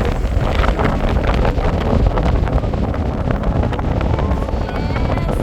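Wind buffeting the microphone, a loud, steady low rumble, with faint voices near the end.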